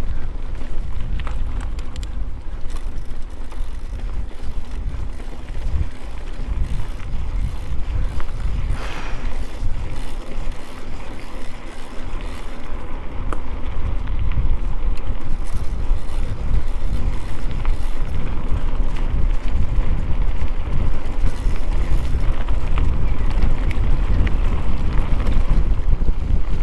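Wind noise on the microphone of a mountain bike in motion, with rattling and knocks from the bike rolling over rough trail; it grows a little louder about halfway through.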